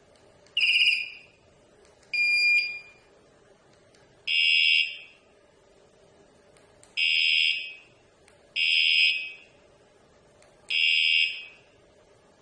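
Wireless vibration-detector bike alarm giving six short, loud electronic chirps, unevenly spaced one and a half to two and a half seconds apart. The first chirp warbles; the others hold steady tones.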